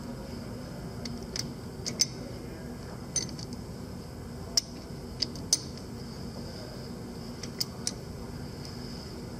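Scattered sharp metallic clicks and light knocks, about eight in all, as a four-jaw lathe chuck is turned by hand and its jaws adjusted while the stock is being indicated in. A steady hum runs underneath.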